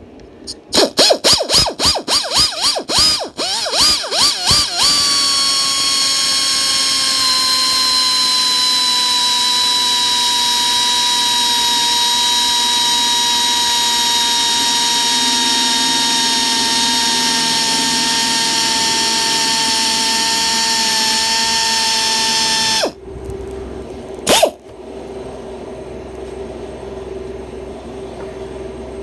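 Electric drill with a stepped bit boring a hole in 4 mm polycarbonate sheet. The trigger is pulsed in quick short bursts for about five seconds, then held for a steady whine of about eighteen seconds that sinks slightly in pitch before cutting off. One more short blip follows about a second and a half later.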